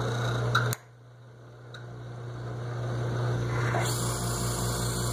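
ILCO Duplimatic 2A key cutting machine running under its electric motor with a steady hum, gears engaged to cut a key. There is a sharp click just under a second in, then the sound drops sharply and swells back over a few seconds.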